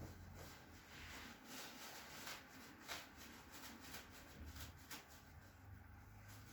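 Near silence: quiet room tone with faint, brief rustles and rubbing of hands and clothing as the practitioner works on the patient.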